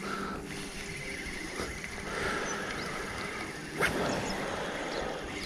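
Spinning reel being cranked steadily during a lure retrieve: a soft, even whir of the reel's gears, with a single click a little under four seconds in.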